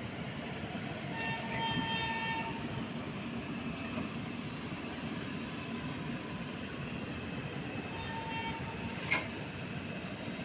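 Steady rolling rumble of LHB air-conditioned passenger coaches passing at speed. A short high tone sounds about a second in, which is the loudest part, and again more faintly near the end. A single sharp click comes just after the second tone.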